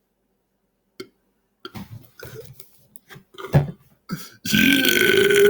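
A man's loud, long belch sets in near the end at a steady pitch, brought on by carbonated sparkling water. It is preceded by a click and a run of short throaty noises.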